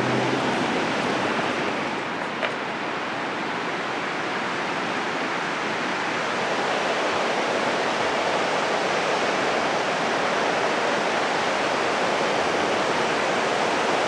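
Steady wash of ocean surf breaking on a beach.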